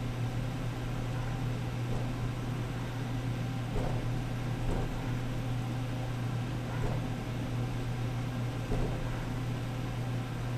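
Steady low machine hum with an even hiss from the human centrifuge's gondola while it turns at its resting base G between runs.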